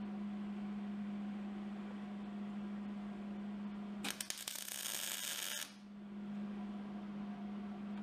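Hobart 210 MVP MIG welder laying a single tack weld: a crackling arc starts about four seconds in and lasts about a second and a half, then stops suddenly. A steady low hum runs underneath throughout.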